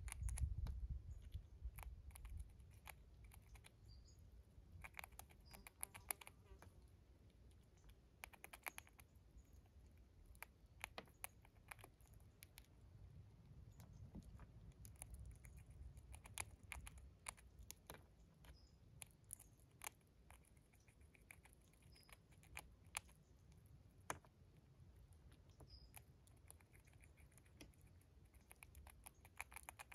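Gray squirrel chewing dried corn kernels: irregular clusters of small, crisp cracking clicks, some runs quick and tightly spaced, others single.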